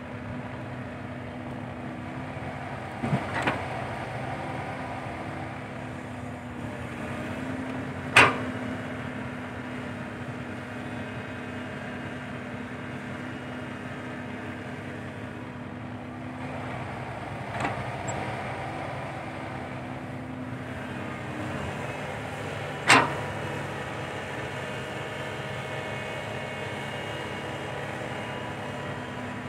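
Komatsu PC120-5 excavator's diesel engine running steadily under hydraulic load as it digs sand, the engine note rising a little as it works. Several sharp clanks from the bucket and arm break through: a quick pair about three seconds in, and the loudest single ones about eight and twenty-three seconds in.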